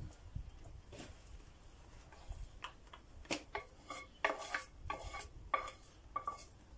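Wooden spatula scraping fried lard, onion and ham out of a frying pan into a bowl. It is a run of short scrapes and knocks that gets busier about halfway through, with the pan ringing briefly on several strokes.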